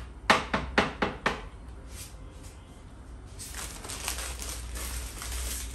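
Five sharp knocks in quick succession in the first second and a half, then a steady crinkling rustle of a plastic bag from about three and a half seconds in.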